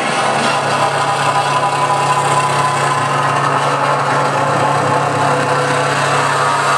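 Live electronic noise music played from a mixer and laptop: a loud, dense wall of hiss and static over a steady low drone.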